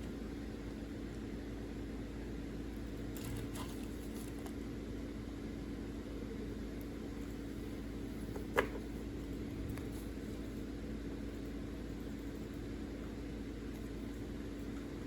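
A steady low electrical or machine hum, with a few faint clicks about three to four seconds in and one sharp click about halfway through.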